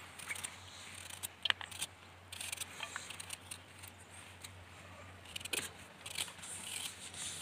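Small knife cutting a vegetable held in the hand, giving a few scattered light clicks and scrapes as small pieces are sliced off, over a faint steady hum.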